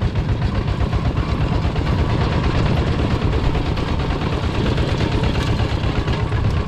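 A two-wheel walking tractor's single-cylinder diesel engine runs steadily with a fast, even chugging while it pulls a trailer.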